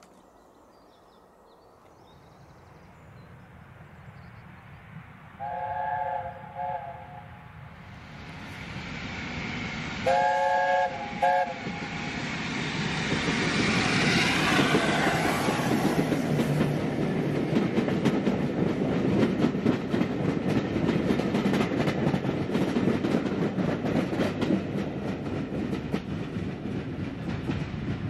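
LNER Class A4 steam locomotive No. 60007 Sir Nigel Gresley and its train approaching and passing. The three-note chime whistle sounds twice, each time a long blast followed by a short one, about five and ten seconds in. From about thirteen seconds the train passes close by, a loud rush with the wheels clacking rhythmically over rail joints.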